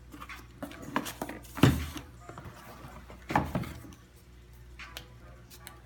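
Paper and packaging being handled by hand: rustling and a few knocks, the loudest about a second and a half in and again about three and a half seconds in.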